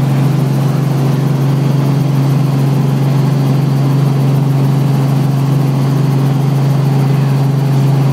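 Robinson R44 helicopter heard from inside the cabin during its descent to land: the rotors and Lycoming six-cylinder piston engine make a steady, loud drone with one strong low hum that does not change.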